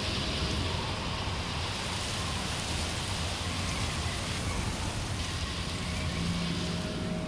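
A steady, even rain-like rushing noise, part of an ambient soundtrack, with faint low held tones beneath it.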